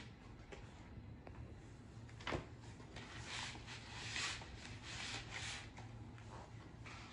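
Boxes of crayons being handled on a wooden floor: one knock about two seconds in, then a run of scraping and rustling as the boxes are moved against the floor and paper.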